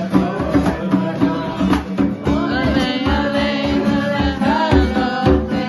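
Acoustic guitar strummed with a hand drum keeping a steady beat, and wordless singing over them during an instrumental bridge of a pop song.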